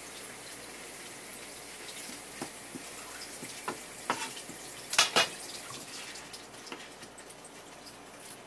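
Kitchen knife working a horse mackerel on a wooden cutting board: light scrapes and ticks as the scutes and leftover scales are taken off, with two sharp knocks about five seconds in. A steady hiss of running water lies under it.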